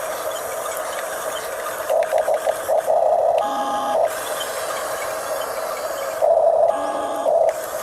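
Electric drive motors and plastic gearboxes of a Huina 1569 RC bulldozer running with a steady whine. The whine surges louder in short stuttering pulses about two seconds in, and again past the six-second mark, as the tracks and blade are driven harder.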